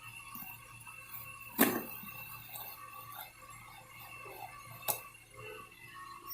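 Hobby blade slicing along the packing tape on a cardboard box: faint scratching, with two sharp clicks, one about a second and a half in and a smaller one near five seconds.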